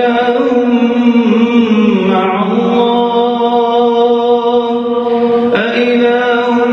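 A man's voice reciting the Quran aloud in a melodic chant, drawing out long held notes that bend slowly in pitch, with a short break about five and a half seconds in.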